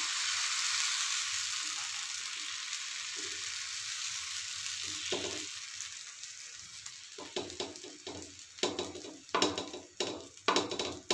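Rice-flour and urad-dal batter sizzling on a hot oiled pan, the hiss fading over the first half as the batter settles. In the last few seconds a run of short scraping strokes follows as the back of a metal ladle spreads the batter across the pan.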